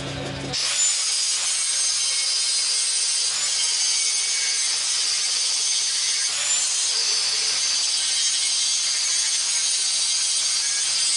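Belt grinder grinding forge scale off a 5160 spring-steel blade: a steady, high hissing grind that starts suddenly about half a second in, over a faint low motor hum.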